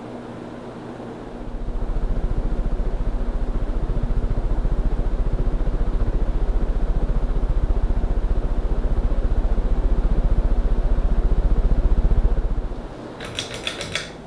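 Turn of the Century Energy Select ceiling fan running with a steady motor hum. About a second and a half in, a loud low rumble that pulses rapidly with the blades sets in as its airflow buffets the microphone, and it drops away near the end. A few sharp clicks follow.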